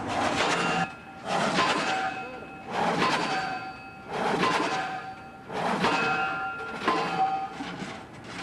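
Diesel pile-driving hammer pounding a pile, about one blow every one and a half seconds. Each blow is a heavy impact followed by a metallic ring.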